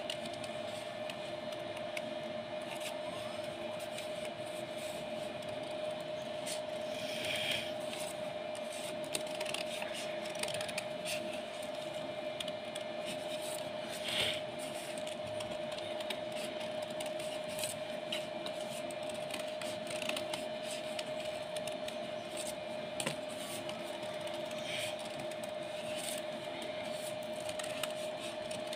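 Scissors cutting folded gold craft paper, with a few brief snips and paper rustles, over a steady hum.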